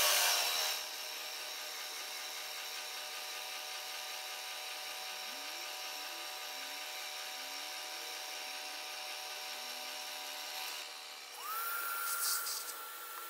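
Milling machine spindle running steadily with a boring head boring out a Stuart D10 steam-engine cylinder. About eleven seconds in, a shop vacuum starts with a rising whine and holds a steady pitch as it sucks up the chips.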